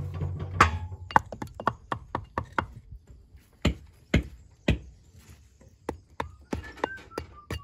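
Stonemasons' hammers striking schist as stones are dressed by hand for door and window openings: irregular sharp knocks, about two or three a second, some with a short metallic ring.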